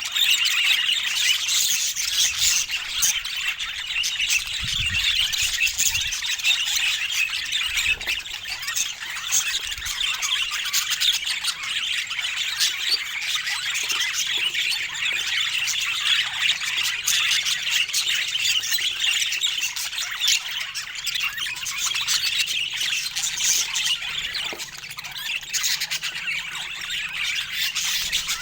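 Budgerigars chattering: a dense, unbroken stream of short chirps and squawks from several birds at once.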